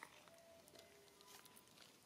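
Near silence: faint outdoor background with a small click at the start, a few faint ticks, and a few faint brief steady tones.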